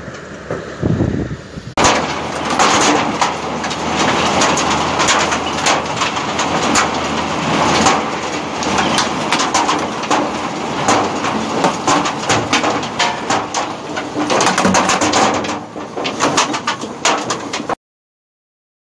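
Grimme SE 260 potato harvester's picking table running loaded with potatoes: a loud, dense rattle and clatter of tubers and machinery with many sharp knocks. Before that, about two seconds of quieter, even noise. The clatter cuts off suddenly near the end.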